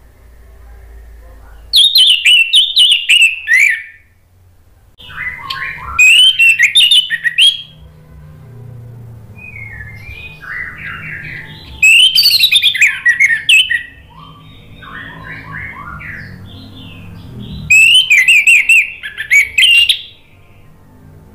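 Orange-headed thrush singing: four loud bursts of rapid, tumbling notes, each falling in pitch and lasting about two seconds, with softer warbled phrases between them.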